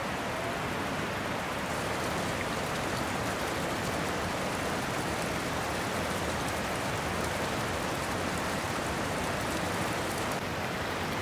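Steady rush of running water, an even hiss with no single splashes standing out.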